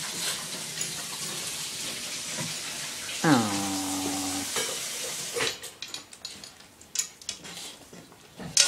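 A dachshund licking a nonstick frying pan, its tongue scraping steadily over the metal for about five seconds, then giving way to scattered light clicks against the pan. About three seconds in, a long vocal sound glides down in pitch and holds for about a second.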